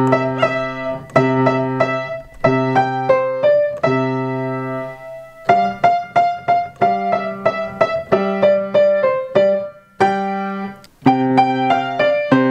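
Young Chang grand piano played: a simple tune in short phrases over held low notes, with a brief pause about ten seconds in.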